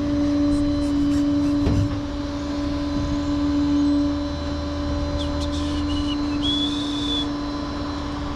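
Rollback tow truck idling with its PTO engaged, the hydraulic pump giving a steady whine over the engine hum that eases off about four seconds in. A few short high squeaks near the end.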